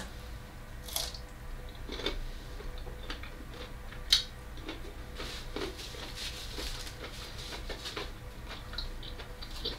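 A person chewing raw cauliflower: faint, scattered crunches and wet mouth clicks, with one sharper crunch about four seconds in.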